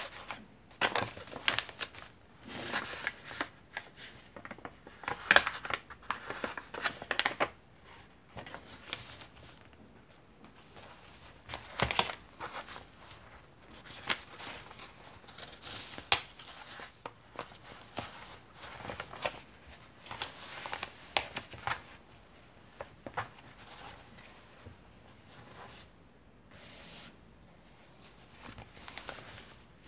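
Vintage paper and fabric pages of a handmade junk journal being turned and handled, rustling and crinkling irregularly, some handlings louder than others, with quieter gaps between them.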